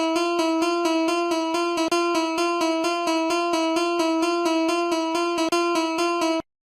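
Japanese railroad-crossing warning bell (fumikiri alarm) ringing its electronic 'kan-kan' dings, about three to four a second, and cutting off suddenly near the end.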